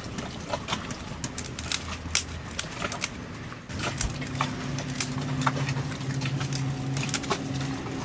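Irregular sharp clicks and snaps of an African grey parrot's beak picking and biting at a woven wicker plant basket. About halfway through, a steady low motor hum starts up underneath.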